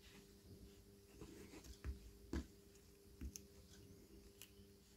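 Faint scratching and a few light clicks of a small screwdriver working at the plastic shell of a JBL Live Free 2 earbud, the sharpest click about two and a half seconds in.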